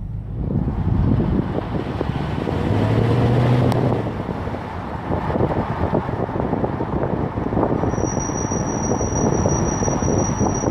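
2016 Dodge Charger Scat Pack driving, with steady road and engine noise. About three quarters of the way in, the brakes start a steady high-pitched squeal that keeps going.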